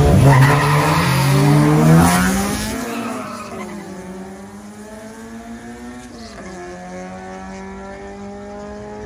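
A street-race car accelerating hard, its engine climbing in pitch and loud for the first two seconds, then fading into the distance as it keeps pulling, with a gear change about six seconds in.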